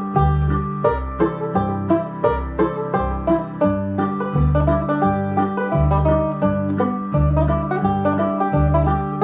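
Resonator five-string banjo picked in a fast, steady stream of notes in bluegrass style, over a low bass accompaniment that alternates between two notes.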